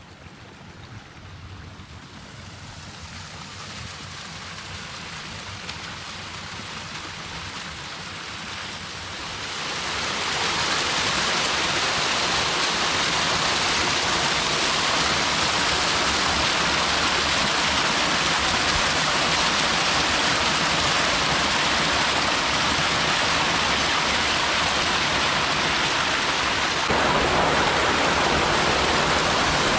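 Small stream cascading over rocks between snow banks: a steady rushing and splashing of water. It grows louder over the first ten seconds, holds steady, and gets louder again near the end.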